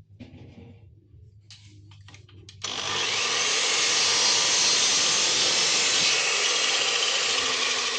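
A few light knocks and handling clicks, then an electric power tool switches on about two and a half seconds in and runs steadily and loudly.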